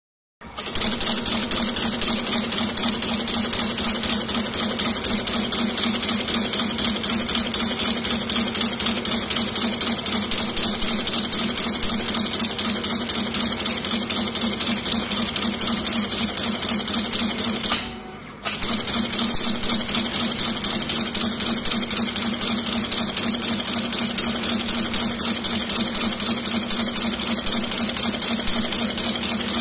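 CNC brush tufting machine running, a fast, steady mechanical clatter as its tufting head punches bristle tufts into plastic toilet-brush heads. It breaks off for a moment about eighteen seconds in, then resumes.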